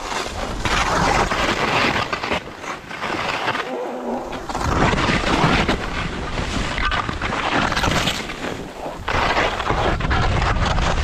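Skis scraping and hissing over snow on a steep slope, coming in surges with short lulls about four and nine seconds in, over a low rumble of wind buffeting the microphone.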